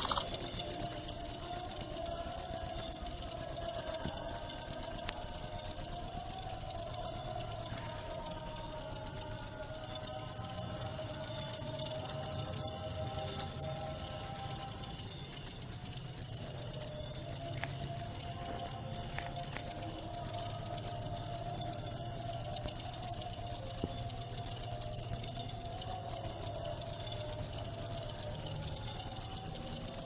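Cricket chirping in a fast, high-pitched, continuous trill, broken by brief gaps about 11, 19 and 26 seconds in. Fainter, lower calls waver in the background.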